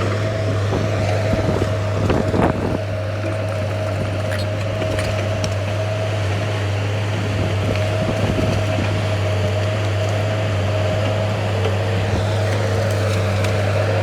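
Diesel engine of heavy earthmoving machinery running steadily, a low drone with a steady whine above it. A few clanks come about two seconds in.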